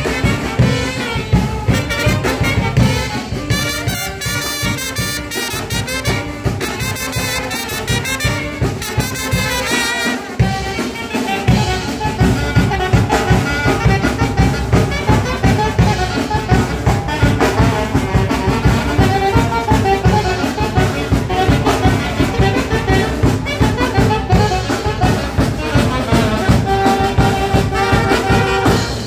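Small brass band playing a lively tune: saxophones and trumpet over snare and bass drum keeping a steady beat. The drums drop out briefly about ten seconds in.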